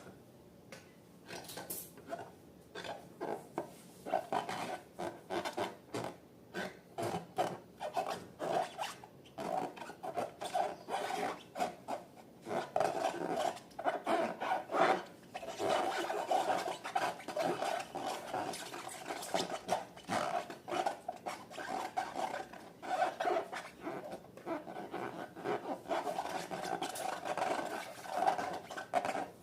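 Slime being mixed in a bowl: a scraping, rubbing sound in repeated strokes, about two a second, that grows fuller after the first few seconds.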